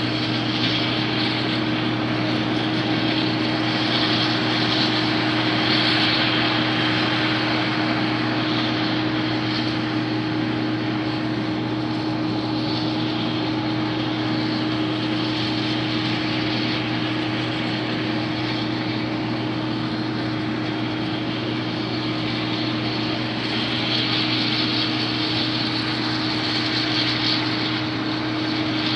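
Combine harvester running steadily in a constant engine drone. It grows louder twice, a few seconds in and again near the end.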